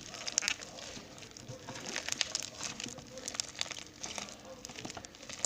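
Foam-ball slime being squeezed and kneaded by hand, giving off many small irregular crackles and pops as the foam beads shift and burst through the slime; really crackly.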